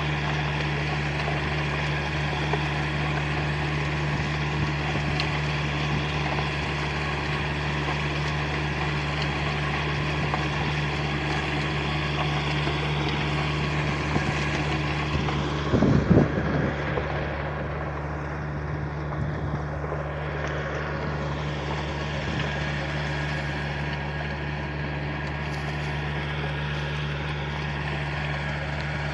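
Farm tractor's diesel engine running steadily under load while it drives a rotary bed-forming tiller through the soil, with a brief louder low thump about halfway through.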